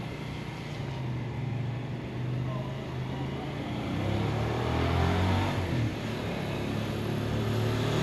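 Motorcycle engine running and drawing closer, growing louder toward the end.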